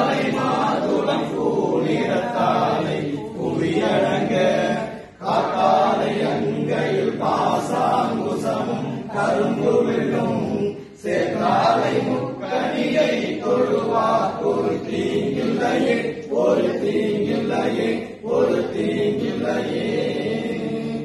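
Several men's voices chanting a devotional mantra together in phrases, with short pauses between lines about five and eleven seconds in.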